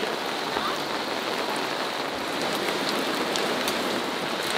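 Steady rain falling on leafy foliage, with many small individual drop hits.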